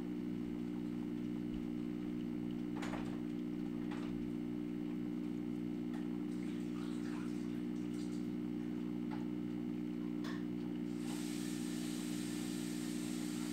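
A steady low hum made of several constant tones, with a few faint clicks scattered through it. Near the end a faint hiss joins in.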